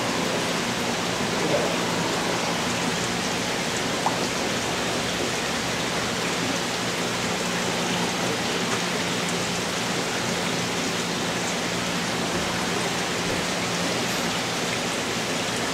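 Steady splashing hiss of water bubbling and pouring into a seawater fish holding tank, with a faint low hum under it.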